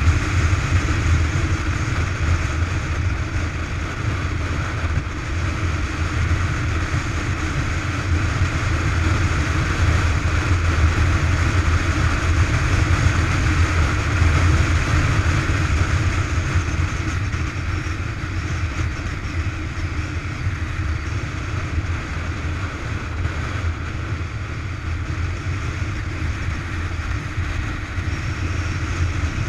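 Motorcycle running at a steady cruise, heard from on board: a low, even engine drone under wind and road noise, with no change in pace.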